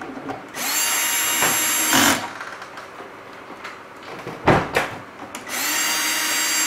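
Cordless drill-driver running twice, each time for about a second and a half, driving screws into the plastic housing of a moving-head stage light. Between the runs there are a couple of sharp clacks.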